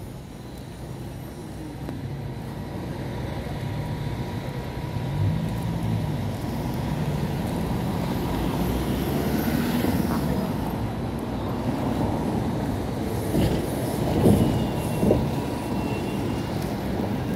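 City street traffic: cars and a bus passing close by, a steady low rumble that builds over the first couple of seconds, with a few short louder knocks a little after the middle.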